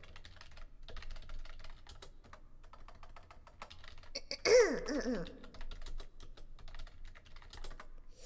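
Computer keyboard typing: quick, irregular key clicks, from someone searching for something on screen. About halfway through comes a brief wordless murmur from a woman's voice.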